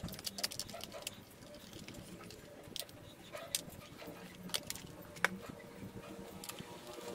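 Scattered light clicks and taps of a plastic extension outlet strip and a small screwdriver being handled and the strip turned over on a wooden tabletop. The sharpest click comes a little after five seconds in.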